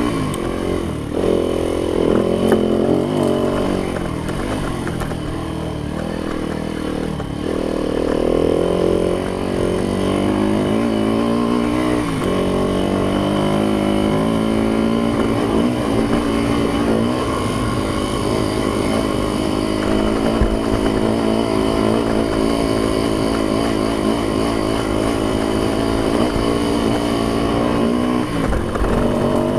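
Yamaha YZ dirt bike engine running while being ridden. It revs up and down with the throttle a few times in the first ten seconds, then holds a steadier pitch.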